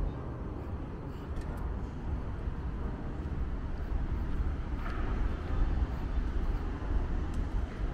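Steady low rumble of road traffic on the Sydney Harbour Bridge overhead.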